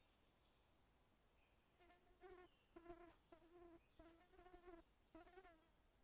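A flying insect buzzing close by in about five short bursts. The buzzing starts about two seconds in and stops shortly before the end.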